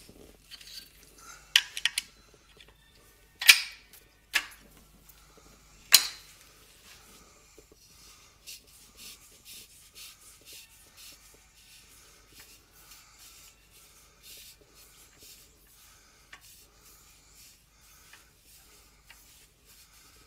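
Sharp metallic clinks and knocks as a vase is freed from a woodturning lathe's chuck, the loudest about six seconds in, then a string of faint ticks and rubbing as the chuck and workpiece are turned by hand.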